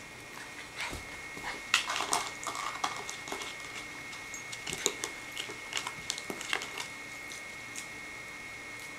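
Blue plastic dog food bowl knocking and clattering as a puppy noses and tips it over the carpet. A run of uneven clicks and knocks, loudest about two seconds in and again near the middle, dying away over the last couple of seconds.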